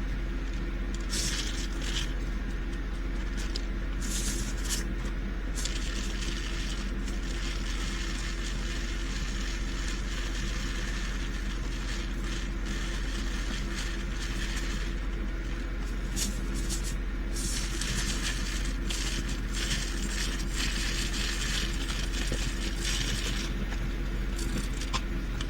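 Loose plastic diamond-painting drills clicking and rattling in short, scattered bursts as spilled ones are gathered by hand, over a steady low hum.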